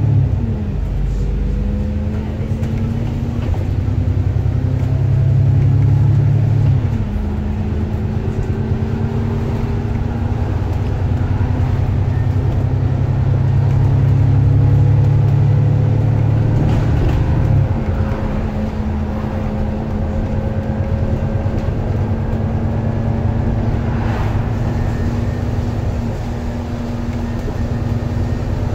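Alexander Dennis Enviro400MMC double-decker bus running on the road, heard from inside the passenger saloon: a steady diesel engine drone whose note drops suddenly twice, about seven and eighteen seconds in, as the automatic gearbox changes up.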